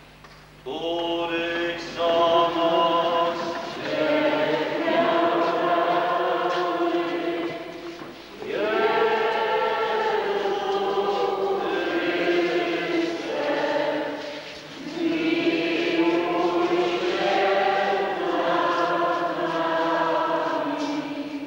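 Congregation singing a Lenten hymn together in a church, in several long phrases with short breaks for breath between them.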